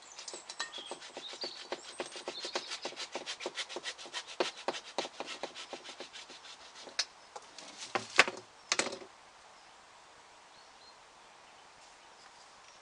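Hand saw cutting with quick, even strokes for about seven seconds, then a few sharp knocks, the loudest about eight seconds in, as the sawing stops.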